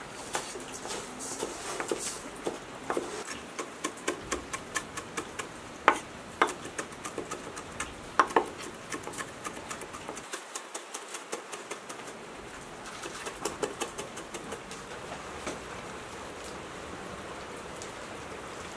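Kitchen knife chopping fresh green onions and herbs on a wooden cutting board: a fast run of sharp chops, several a second, with a few harder strikes. Near the end the chopping gives way to a steady soft hiss of light rain.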